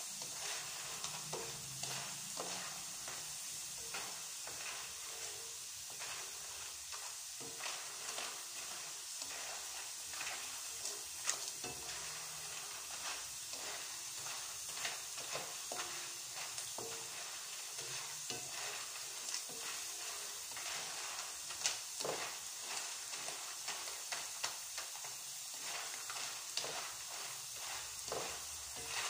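Banana slices sizzling steadily in hot oil in a wok, with a spatula scraping and knocking against the pan at irregular moments as they are stirred; the sharpest knock comes about three-quarters of the way through.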